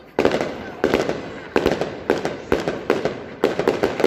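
Daytime fireworks going off overhead: a rapid series of loud bangs, about six in four seconds, each echoing and dying away before the next.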